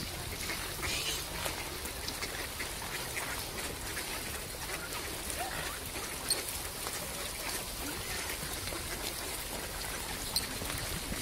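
A crowded flock of mallard ducks quacking on and off, with mute swans among them, over steady outdoor background noise. Two brief sharp clicks stand out, about six and ten seconds in.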